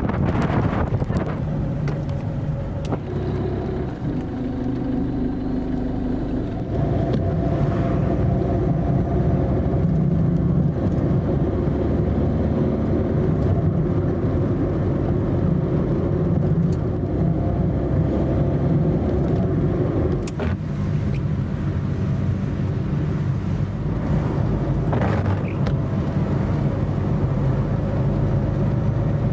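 A car driving, heard from inside the cabin: steady engine and road noise, after a brief moment of wind on the microphone at the very start.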